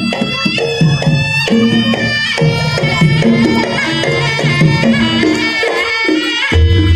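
Traditional Javanese jaranan music: drum strokes under a melody of long held notes. A deep low note comes in near the end.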